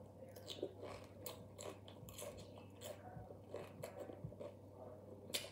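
Faint, irregular crunching of raw green bell pepper pieces being bitten and chewed, over a steady low hum.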